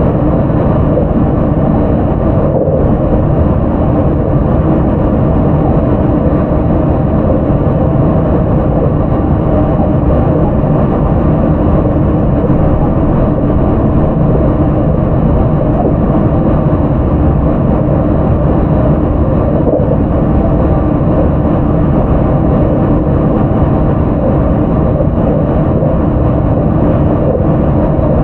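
Steady onboard running noise of a JR 681 series express EMU motor car: wheels rumbling on the rails at an even pace, with no rise or fall in pitch and no change in loudness.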